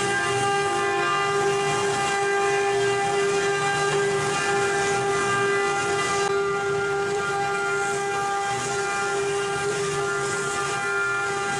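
CNC router spindle running with a steady high whine and a hiss over it. The hiss eases a little about six seconds in.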